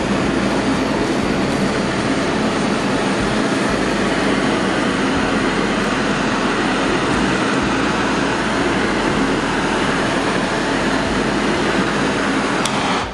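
Handheld kitchen blowtorch flame running with a steady, loud rushing hiss as it browns the mayonnaise on a fried egg, cutting off sharply near the end.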